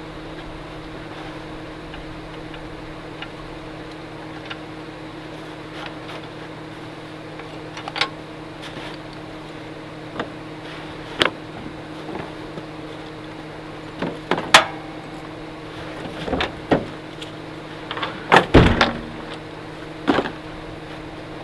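A steady low machine hum with scattered knocks and clicks of things being handled, coming more often in the second half, with a cluster of louder knocks near the end.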